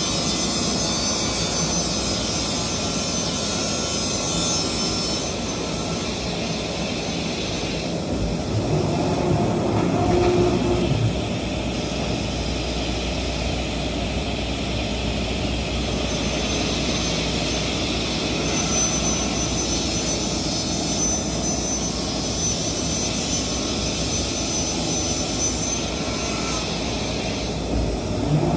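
Workshop machinery running steadily: a constant loud mechanical rush with a faint high whine that comes and goes.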